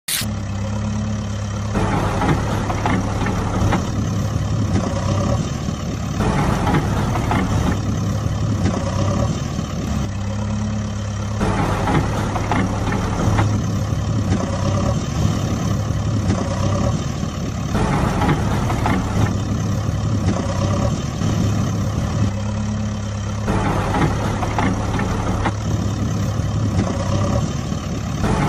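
A heavy diesel engine running in a steady low hum, its sound shifting abruptly every couple of seconds in a repeating loop, as a dubbed-in engine sound effect does.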